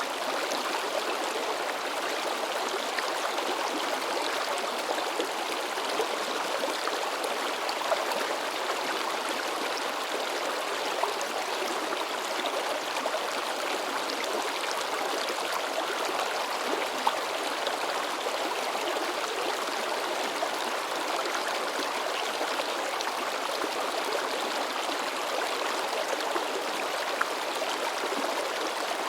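Shallow mountain stream babbling and splashing over rocks, a steady rush of water with small splashes scattered through.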